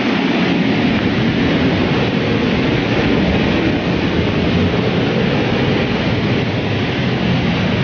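Mine ventilation fan blowing air through a ventilation hose: a steady rushing noise with a low hum underneath.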